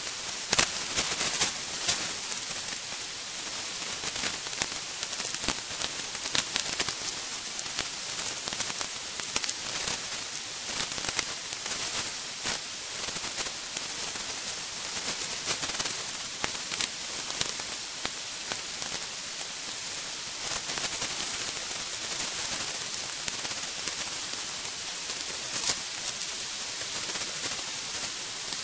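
Tent fabric rustling and crinkling as it is unpacked and spread out over gravel, with many scattered crackles and clicks over a steady high hiss.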